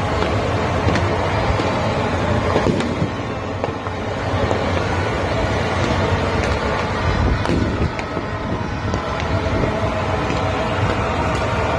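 Loud, steady outdoor din of a huge crowd and traffic, with a few faint held tones and a few faint sharp cracks.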